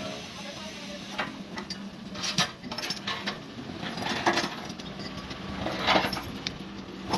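Metal parts clinking and clattering as they are handled, four or five sharp ringing knocks over a steady low hum.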